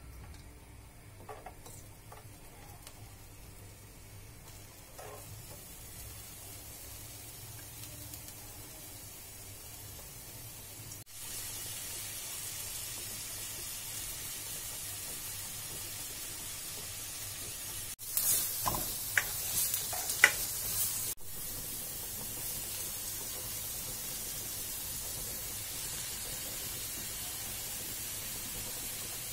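Chopped onion and vegetables sizzling in hot oil in a frying pan, a steady hiss that gets louder in steps partway through. About two-thirds of the way in, a few sharp clicks stand out over the sizzle.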